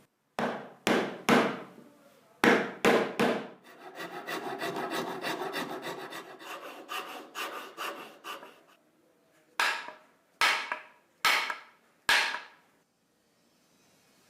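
Sharp knocks of a tool striking wood: two groups of three, then a rattling run of rapid, lighter strokes lasting several seconds, then four more single knocks spaced under a second apart.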